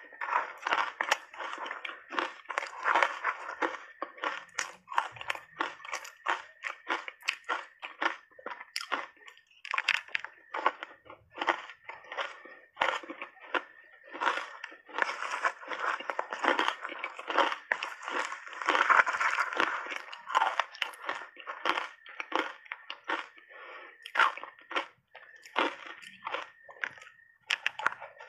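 Crushed ice coated in matcha powder being chewed in big mouthfuls: dense, continuous crunching, with brief pauses between bites.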